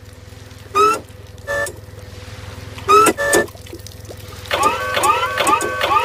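Short, high squealing cries that rise in pitch, from a cartoon whale speared on forklift forks, over a steady low engine hum. The cries come singly at first, then several a second near the end, with a couple of short flat toots between them.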